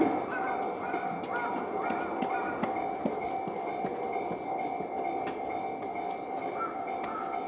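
A train running, with a steady high whine and light clicking. A short repeating tone sounds about twice a second near the start and again near the end.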